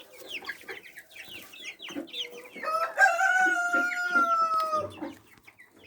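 Chickens clucking with many short high chirps, then one long drawn-out crowing call of about two seconds, held and falling slightly in pitch before it stops.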